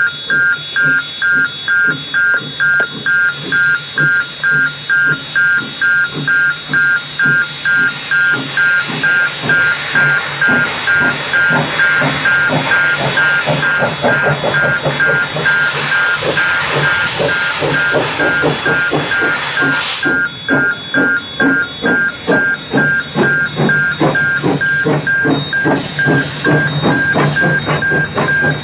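Railway level crossing alarm beeping in a steady, evenly repeating pattern. Steam hisses from the C17 steam locomotive's cylinders from about ten seconds in, building, then cuts off suddenly about twenty seconds in.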